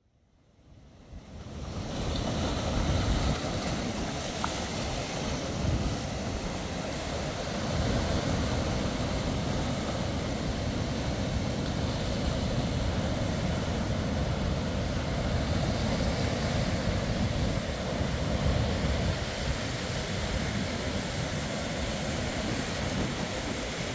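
Ocean surf breaking and washing up a sandy beach, a steady rushing with wind rumbling on the microphone. It fades in over the first two seconds.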